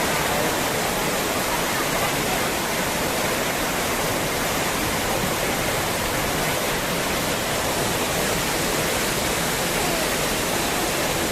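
Steady rushing of floodwater, an even noise with no breaks.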